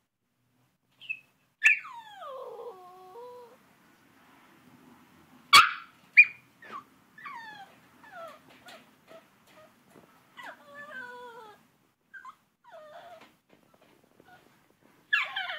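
Yorkshire terrier puppy whimpering and yelping while shut in its crate: a long whine falling in pitch about two seconds in, then a string of short falling whimpers, with two sharp yelps near the middle and another near the end.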